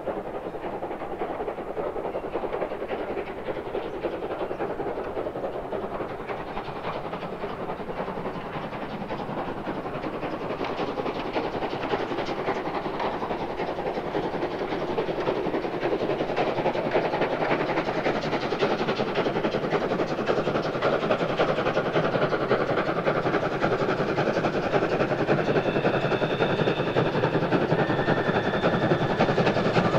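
DB class 01.10 three-cylinder steam locomotive 01 1104 working a passenger train, its exhaust and running noise growing steadily louder as it approaches. A few high steady tones come in near the end.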